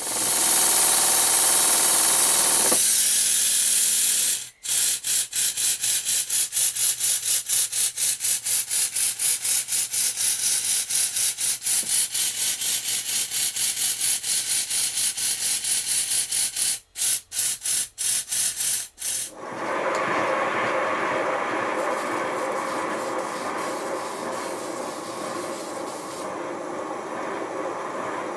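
A loud steady hiss for the first four seconds, then a small twin-cylinder vertical model steam engine running with quick, even exhaust beats, faltering about seventeen seconds in and stopping a couple of seconds later. A steady hiss follows from a model live-steam locomotive fed through a supply hose.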